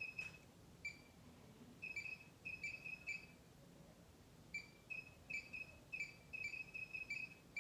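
A cricket chirping: short high chirps repeated in irregular clusters of two to four, with pauses of a second or so between clusters.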